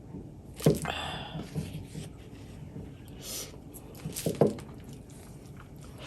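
Close-up eating sounds: wet chewing and mouth noises, with two sharp clicks, one about a second in and another about four seconds in.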